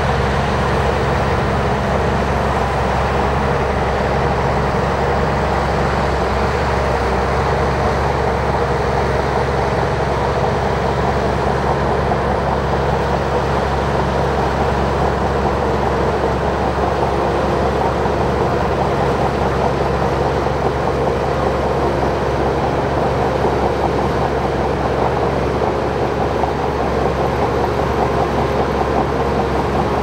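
Shantui crawler bulldozer's diesel engine running steadily under load as the dozer pushes a pile of soil with its blade.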